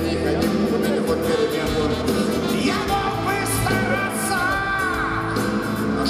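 Live rock band playing a song with a male lead singer, over a steady drum beat, electric guitar and bass. Heard through the PA from among the audience.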